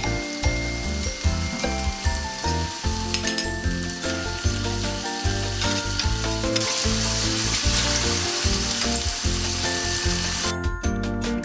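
Fried eggs frying in a bubbling kecap manis (sweet soy) sauce with onion and chillies in a square pan, sizzling steadily. The sizzling grows louder a little past the middle and cuts off abruptly near the end.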